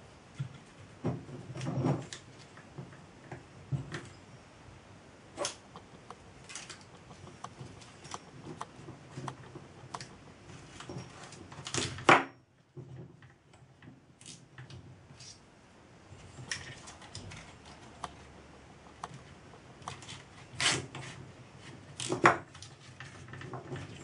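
Plastic cable ties being pulled tight by hand around a model steam engine's boiler, with light clicks and handling knocks in between; the loudest short zip comes about halfway through, with two more near the end.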